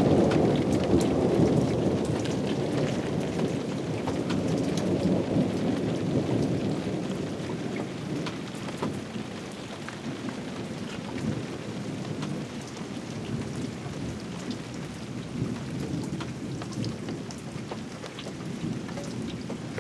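Thunder rumbling and slowly fading away over the first several seconds, over steady rain with many scattered raindrop ticks. The rain goes on more quietly once the rumble has died down.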